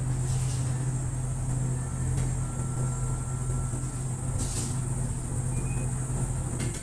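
Steady low engine hum, holding one even pitch, that starts and stops abruptly.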